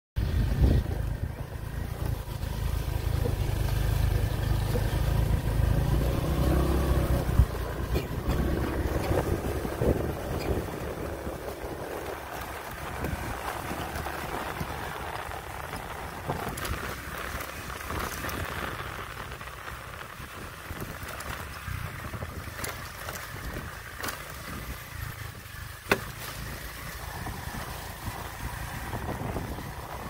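Motorbike engine running on the move, with a heavy low rumble of wind on the microphone that is strongest in the first seven or eight seconds and then eases. A few sharp knocks come through, one at about seven seconds and one near twenty-six seconds.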